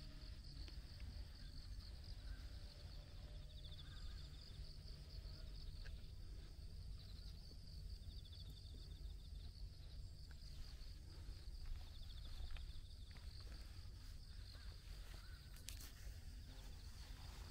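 Faint outdoor ambience dominated by insects chirring: a steady, high, finely pulsing trill over a low rumble, with a few sharp clicks near the end.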